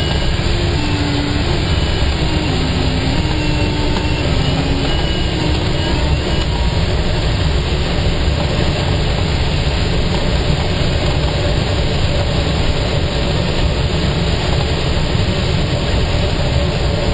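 Steady rush of airflow over an ASK21 glider in flight, heard in the cockpit. A faint tone steps up and down in pitch through the first several seconds.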